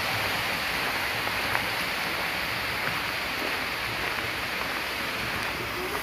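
Man-made park waterfall: a steady rush of falling water, even and unbroken.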